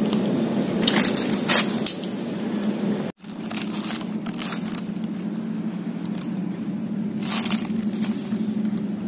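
Wet biting and chewing of a soft kemayau fruit, a few short squishy crackles, then after a brief break a hand swishing kemayau fruits around in a bowl of warm water, with small splashes twice. A steady low hum runs underneath.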